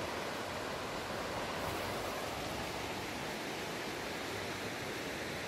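Steady rushing of a river still running strong after a flood.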